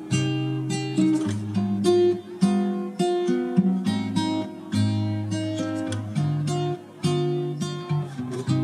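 Background music played on acoustic guitar, with plucked notes and strummed chords in a steady rhythm.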